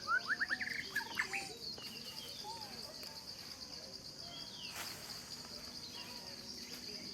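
Outdoor nature ambience: a steady, high, pulsing insect trill throughout, with a quick run of bird chirps in the first second and a half and a few scattered calls later.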